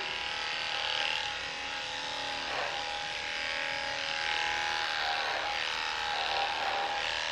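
Electric dog-grooming clippers running with a steady hum while clipping the fur on a dog's muzzle.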